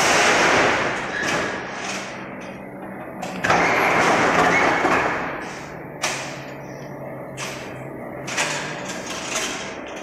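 Crimped wire mesh machine running: a steady motor hum under two long clattering surges, one at the start and one about three and a half seconds in, then several single knocks.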